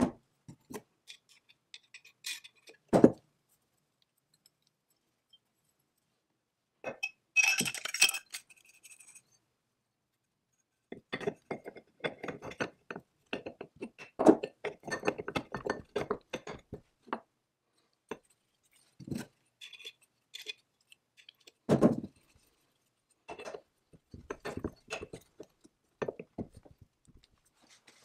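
Metal lathe parts handled and fitted by hand: the steel back-gear shaft with its gears set into the cast-iron headstock, making scattered clinks, rattles and a few sharper knocks as the pieces meet and are set down.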